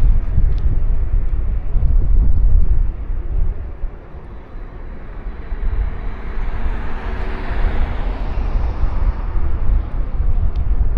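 Riding along a road with a heavy, fluctuating low rumble of wind on the microphone. A passing vehicle swells in and fades out between about six and ten seconds in.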